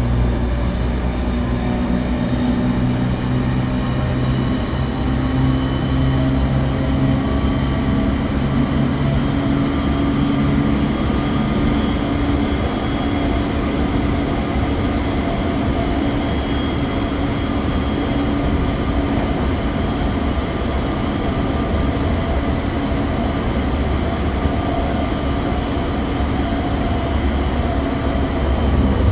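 Cabin running sound of a JR 209-series electric train fitted with a GTO-VVVF inverter and MT68 traction motors: steady motor and inverter whine of several held tones over the rumble of wheels on rail. Some of the lower tones fade out about halfway through.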